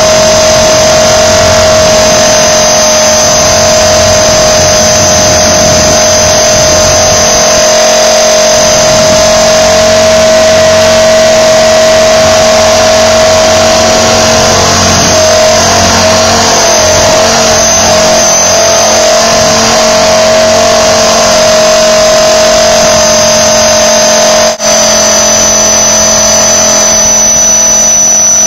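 Blade 400 electric RC helicopter in flight: a steady, loud whine from its motor and rotor, wavering slightly in the middle, with a momentary break near the end.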